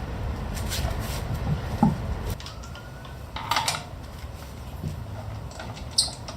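Scattered light metal clinks and taps as lug nuts are put onto the wheel studs by hand, with one louder ringing clink about three and a half seconds in, over a steady low background rumble.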